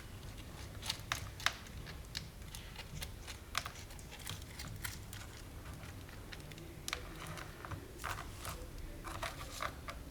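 Small seashells clicking and tapping lightly, irregular faint clicks as they are handled and set in place by hand.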